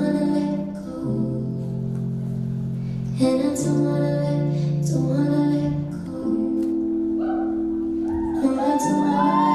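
Slow ballad music with long held chords that change every second or two, and gliding, arching vocal-like notes near the end.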